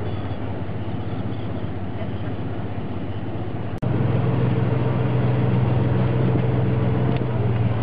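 Steady low drone of a boat engine. Just before halfway it drops out for an instant and comes back louder, with a steadier hum.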